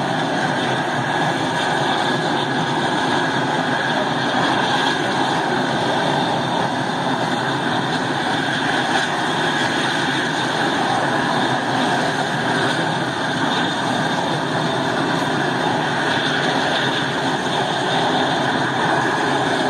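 Single-engine firefighting air tanker running steadily on the ground, its propeller turning.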